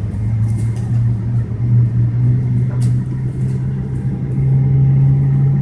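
Steady low drone of a Boeing 777-200ER heard from inside the cabin during pushback, its pitch stepping up a little about halfway through.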